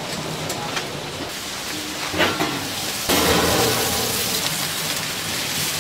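Pork frying with a steady sizzle and a few knocks. The sizzle gets louder about three seconds in.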